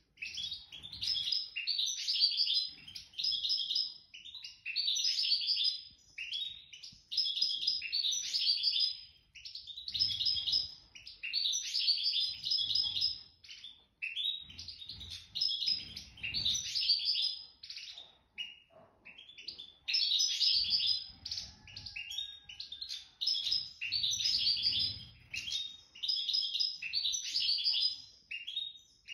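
A nest-raised songbird singing: bright, twittering phrases a second or two long, repeated with short pauses between them. Faint low thumps can be heard now and then underneath.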